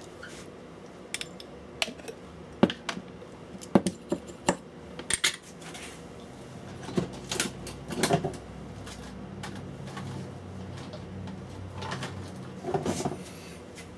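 Clicks and clatters of small hand tools being picked up and put down on an electronics workbench, a quick run of sharp knocks in the first few seconds and a few more later, with a low hum through the middle.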